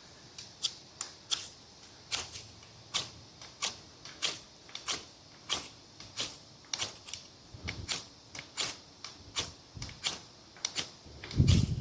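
Spine of an Ozark Trail 11-inch fixed blade knife scraped again and again down a ferro rod, a short sharp rasp about one and a half times a second, with a louder thump near the end. The spine is too dull to throw many sparks, which the owner judges needs sharpening.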